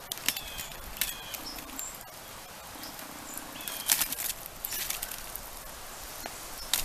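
A flat piece of wood scraping and knocking through burning logs, embers and dirt in a fire pit, in a few separate strokes, the loudest about four seconds in.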